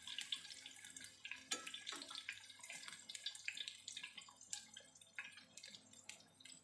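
Tempura-battered zucchini slices frying in hot oil: a faint steady sizzle full of small crackles and pops, with light clicks as a fork turns and lifts the slices.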